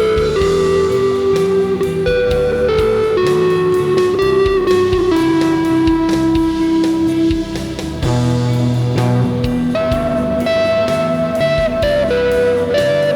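Electric guitar, played through effects pedals, improvises a slow lead line of long held notes over an ambient rock backing track with drums.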